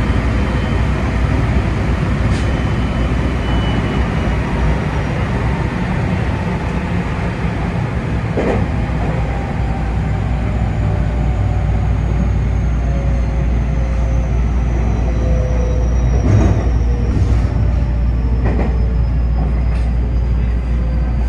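JR West 223 series 2500 electric train running on the rails with a steady low rumble, its Toshiba IGBT-VVVF inverter whine slowly falling in pitch as the train slows for a station stop. A few short clicks from the wheels are heard about eight, sixteen and eighteen seconds in.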